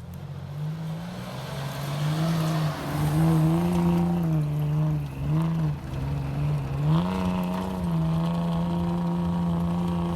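Suzuki RM-Z450's single-cylinder four-stroke engine running, its pitch rising and falling with several throttle blips, then held steady for the last couple of seconds. The bike makes a noise that the owner suspects is rod knock.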